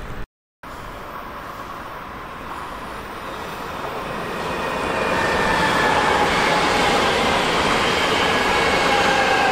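A train approaching and running past: the rolling noise builds over a few seconds and then holds loud, with several high whining tones sliding slowly downward.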